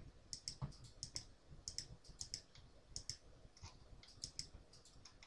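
Many faint, irregular button clicks, often in quick pairs, from buttons being pressed one after another.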